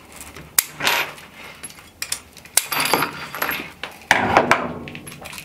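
Metal clinks and rattling from a braided dishwasher supply hose and its fittings being handled, with a few sharp clicks about half a second, two and a half, and four seconds in.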